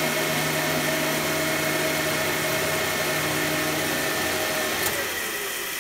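UV flatbed printer running through a print pass: a steady whirring hum of its motors and cooling fans as the bed carriage moves. Near the end a tone slides down, the hum drops a little and there is a click.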